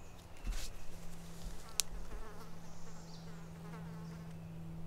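A flying insect buzzing in a steady low drone, with a single sharp click just under two seconds in.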